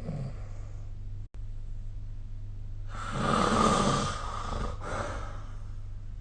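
A sleeping person snoring: one loud, breathy snore starts about halfway through and fades out over about two seconds, over a steady low hum. The sound cuts out for a split second about a second in.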